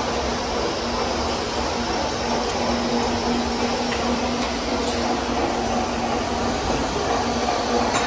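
Steady mechanical whir of a continuous rotary carbonization furnace plant running, with a constant low hum and a few light clinks.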